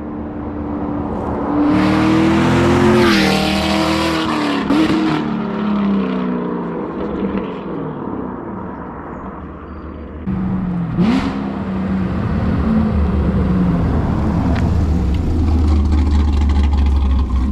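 Texas Speed cammed 6.2-litre LT1 V8 of a Camaro SS 1LE accelerating hard. Its exhaust note climbs in pitch and falls back twice at gear changes, then settles into a deep, steady rumble near the end.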